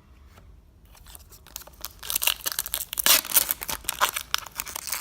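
Foil wrapper of a Pokémon TCG booster pack being torn open and crinkled. It starts faintly about a second and a half in and is loudest in the middle.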